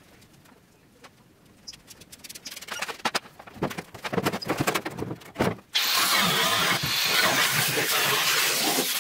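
A grinder with a cutting disc starts suddenly about two-thirds of the way in and cuts steadily through the rusted sheet steel of the Beetle's rear wheel arch, throwing sparks. Before that there are scattered knocks and clicks from handling the tool and the panel.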